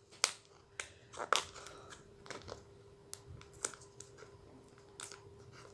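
Gift-wrapped package being handled and opened by hand: scattered light clicks, taps and soft rustles of paper and cardboard.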